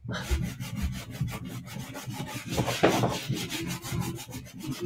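Stick of chalk scribbled on a tuff tray in quick back-and-forth strokes, a steady dry rubbing scratch.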